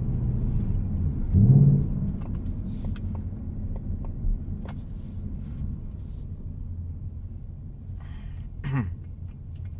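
Ford Mustang Bullitt's 5.0-litre V8, heard inside the closed cabin while driving, running as a steady low drone. A brief, louder burst of revs comes about a second and a half in, then it settles back at lower revs.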